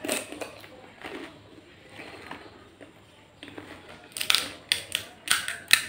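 Crisp fried fuchka (pani puri) shells crunching as a mouthful is bitten and chewed, with a quick series of sharp, loud crunches between about four and six seconds in.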